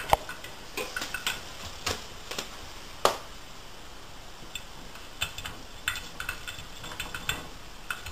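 Scattered light clicks and knocks of a cat's paws and claws against the inside of a front-loading washing machine's drum, with a sharper knock right at the start and another about three seconds in.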